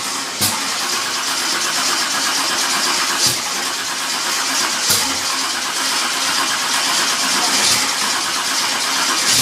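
355 small-block Chevy V8 on its first start-up: a loud, steady engine noise broken by a few sharp pops. It came up with no oil pressure.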